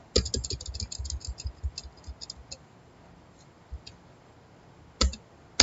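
Rapid run of computer clicks while paging through an on-screen document. The clicks are dense for about the first second and thin out over the next two, with two louder clicks near the end.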